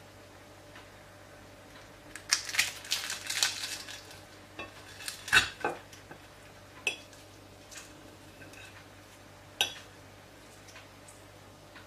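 A metal fork breaking through crisp, flaky baklava on a plate. A dense crackling of the pastry layers comes about two seconds in, then a few single sharp clicks of the fork on the plate.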